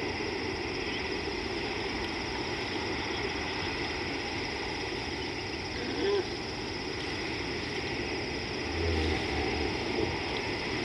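Steady rush of river water, with a constant high drone of insects over it. Near the end come a few short, low grunting pulses.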